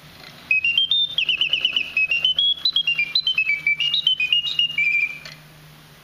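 Bontems mechanical singing bird's bellows-fed whistle playing its birdsong: a high, chopped series of fast trills and notes jumping up and down in pitch, starting about half a second in and stopping a little after five seconds.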